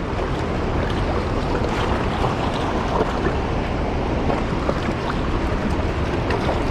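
Steady rushing roar of a large waterfall and fast-flowing water.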